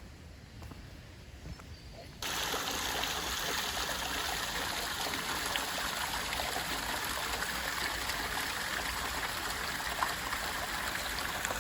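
Small waterfall: water falling from the lake into a lower pool, a steady rush and splash that starts abruptly about two seconds in.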